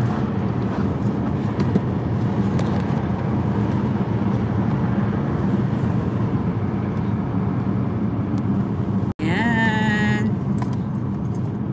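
Steady road and engine noise inside the cabin of a moving car. It drops out for an instant about nine seconds in, then a short voice-like sound follows.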